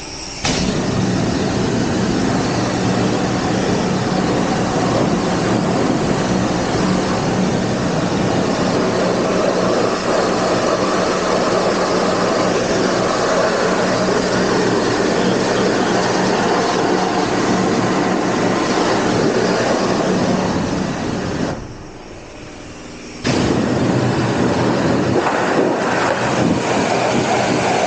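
High-pressure wash wand spraying water onto a trailer deck: a steady loud hiss of spray with a low hum underneath. The spray stops for about two seconds near the end, then starts again.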